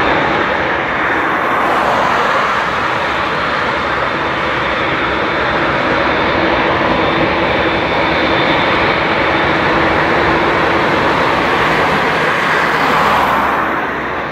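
Boeing 787-8 Dreamliner's twin turbofan engines running at taxi power as the airliner turns onto the runway: a loud, steady rush with a faint high whine, easing slightly near the end.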